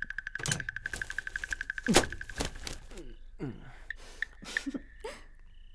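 Crickets trilling fast and steady, while a man asleep snores and snorts: one loud snort falling in pitch about two seconds in, then two weaker ones.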